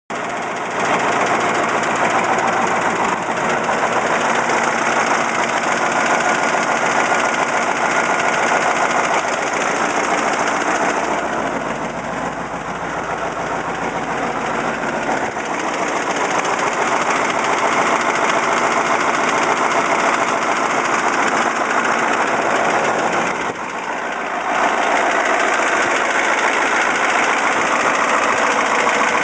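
Caterpillar 3208T turbocharged V8 diesel running with a rattling knock. The owner suspects fuel or injector knock, or a broken piston or rings, after it was run with the injection pump timed too far advanced. The level eases off for a few seconds around the middle and dips briefly near the end.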